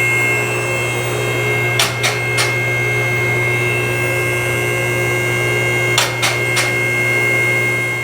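A steady mechanical hum with several whining tones, broken twice by a quick run of three sharp clicks or knocks, the runs about four seconds apart.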